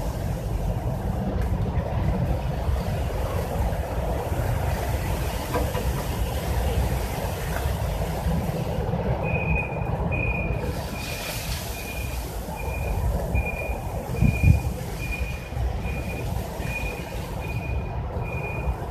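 Steady low rumble of background noise. From about halfway through, a high electronic beep repeats evenly, a little under twice a second. There is a brief low thump about three-quarters of the way in.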